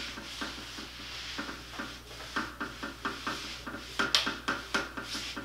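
A self-tanning mitt rubbed quickly back and forth over the skin of the leg and foot: a run of short brushing strokes, a few a second, some firmer than others.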